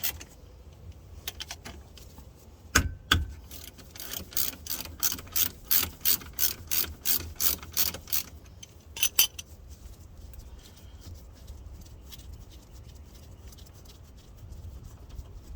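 Hand ratchet clicking in quick strokes, about four a second, as it backs out the 17 mm brake caliper bolts, which are rusty. Two sharper knocks come about three seconds in, and the clicking stops a little after the middle.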